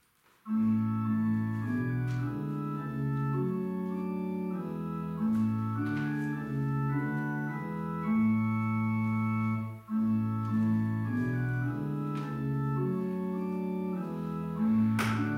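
Organ playing a hymn tune in held chords for the closing hymn. It begins about half a second in, with a brief break between phrases about ten seconds in.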